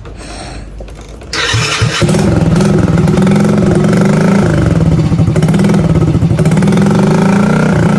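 A Gilera Smash 110's small single-cylinder four-stroke engine starting about a second and a half in, catching about half a second later, then running loudly and steadily, its pitch dipping briefly about halfway through.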